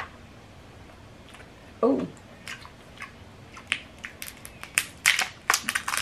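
King crab leg shell cracked and snapped apart by hand: a run of sharp crackling clicks that gets denser over the last two seconds. A short "ooh" comes about two seconds in.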